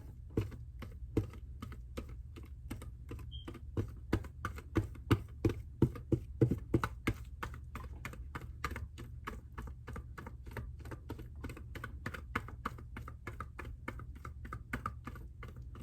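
A kitchen utensil clicking rhythmically against a mixing bowl as cake batter is stirred or scraped by hand, about three clicks a second, louder for a few seconds in the middle.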